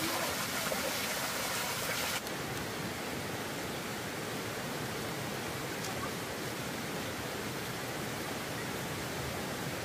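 Steady rushing noise that turns duller and a little quieter about two seconds in.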